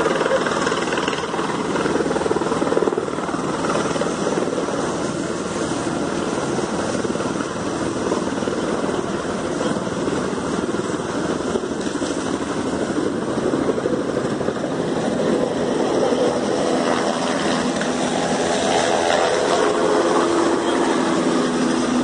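Helicopter engine and rotor running steadily while the machine sits on the ground after landing.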